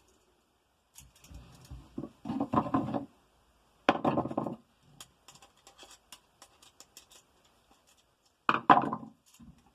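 Handling noises from wiring an electrical outlet: three short bursts of scraping and clicking, with small ticks between them, as stiff wires and tools are worked into the box.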